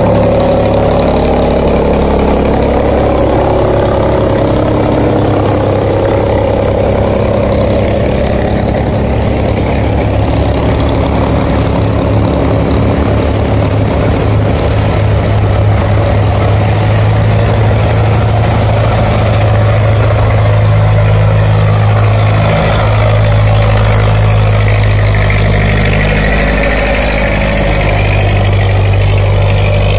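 A boat's engine running steadily with a low drone, with churning water rushing around the hull.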